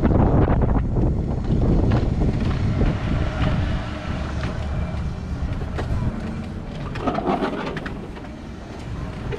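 Quickie power wheelchair rolling over a concrete sidewalk: a steady low rumble mixed with wind on the microphone, with a few clicks and knocks along the way. The rumble fades near the end as the chair rolls indoors.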